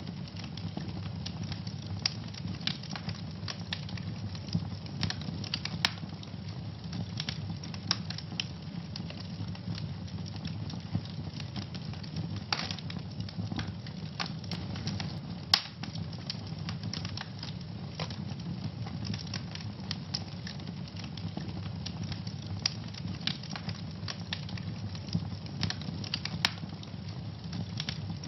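Wood fire burning in a fireplace, crackling steadily over a low rumble, with frequent irregular sharp pops. One pop about halfway through is the loudest.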